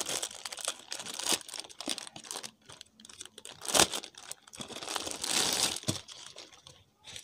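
Gift wrapping and plastic packaging handled by hand, crinkling and rustling in irregular bursts. There is a sharp loud crackle just before the midpoint and a longer rustle a little later.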